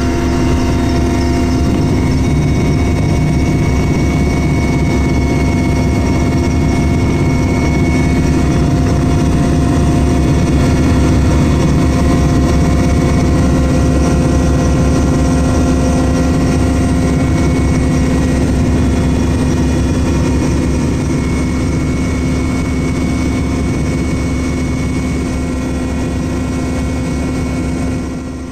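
Military helicopter's engine and rotor running steadily: a loud, even drone with steady whining tones above it, cutting off suddenly at the very end.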